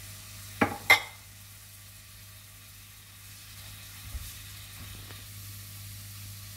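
Applesauce sizzling softly in a hot nonstick frying pan, a steady hiss over a low hum, with two sharp knocks about a second in.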